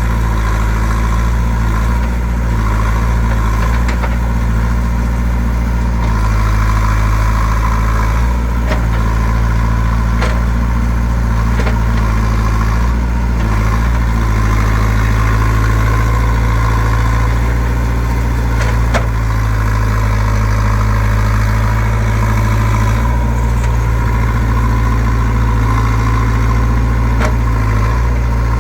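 JCB 3CX backhoe loader's diesel engine running steadily at low revs, with a few sharp knocks and clanks now and then.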